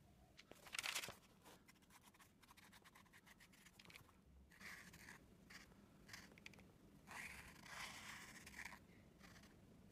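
A sketchbook's pages handled and opened with a brief loud rustle of paper about a second in, then a Posca paint marker drawing on kraft paper: a few short strokes, and a longer stroke of nearly two seconds near the end.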